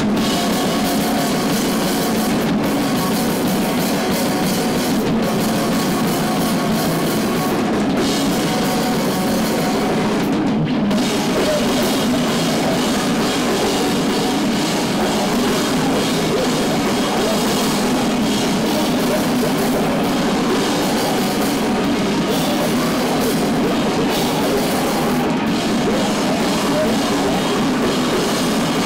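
Live heavy rock band playing loud: electric guitar over a drum kit with cymbals.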